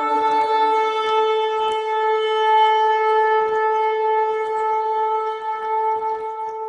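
Shofar sounding one long, steady held blast, fading near the end.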